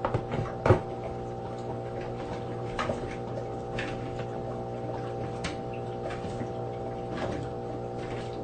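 Plastic water tank of a console humidifier set down into its base with two loud knocks in the first second, then light scattered taps and clicks on the plastic as a cat paws at the tank. A steady hum runs underneath.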